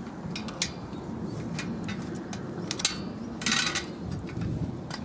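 Light metal clicks and clinks as a screwdriver works a bicycle chain off the rear wheel, with one sharp click about halfway through followed by a short rattling scrape.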